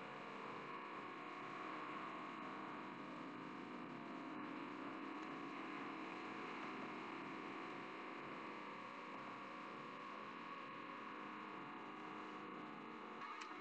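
Steady low hum and hiss with no distinct events: the background noise of a webcam microphone.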